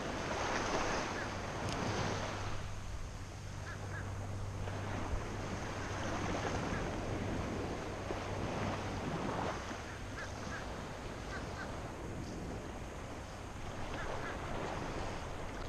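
Small waves lapping and sloshing around shallow water, with wind buffeting the microphone and a low steady hum underneath.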